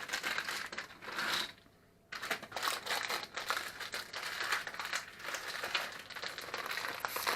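Plastic chocolate-chip bag crinkling and rustling as it is handled and emptied. The sound cuts out completely for about half a second about one and a half seconds in.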